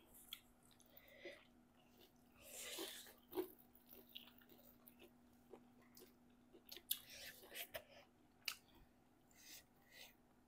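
Faint, close mouth sounds of eating: chewing and biting food, heard as scattered short clicks and smacks, with a longer noisy bite about two and a half seconds in. A faint steady hum sits underneath.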